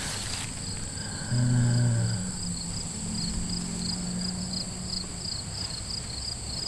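Crickets and other insects chirping outdoors: a steady high buzz with pulsed chirps about twice a second. A brief low hum rises over them about a second and a half in, then fades to a fainter low tone.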